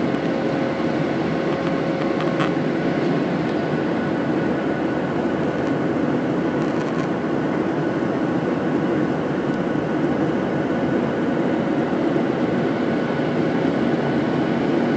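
Steady in-flight cabin noise of a jet airliner: an even low rush of engine and air noise with a faint steady hum above it.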